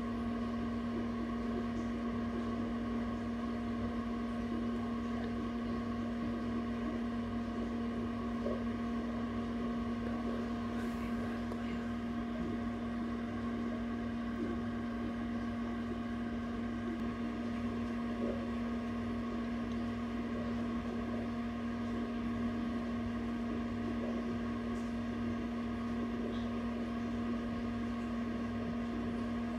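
Egg incubator running, a steady low hum with a few fainter higher tones above it and no change throughout.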